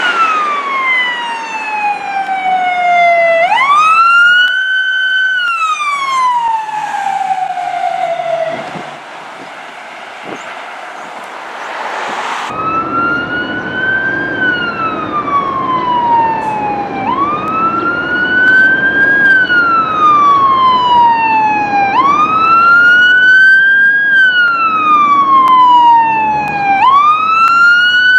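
Emergency vehicle sirens wailing, each cycle a quick rise in pitch, a short hold, then a slow fall, about once every five seconds. A second siren takes over about twelve seconds in, over a low rumble of engines and traffic.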